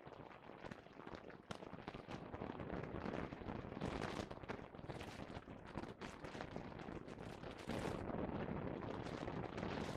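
Small brake master cylinder parts being handled and fitted by hand: a dense, uneven run of small clicks, taps and scrapes.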